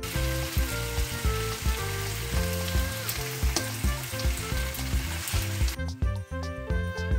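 Pork trotters and red onions sizzling as they fry in a pan, over background music. The sizzling cuts off near the end, leaving only the music.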